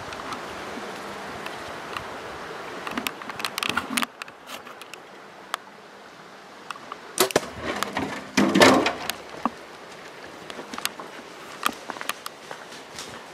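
Close rustling and scuffing in brush with scattered sharp clicks, loudest and fullest about eight to nine seconds in.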